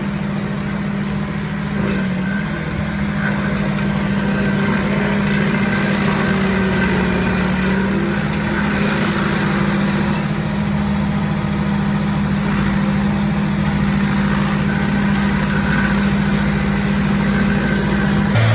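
Engine of a remote-controlled robotic stump grinder running at a steady speed, a constant drone.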